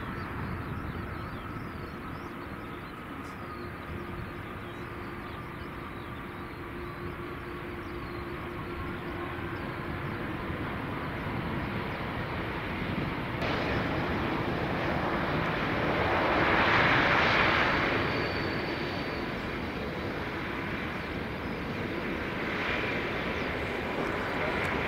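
Airbus A380's four Engine Alliance GP7200 turbofans running at low thrust as the airliner rolls out along the runway after landing, a slowly falling whine in the first half. The sound brightens suddenly a little past halfway and is loudest soon after, as the jet passes closest.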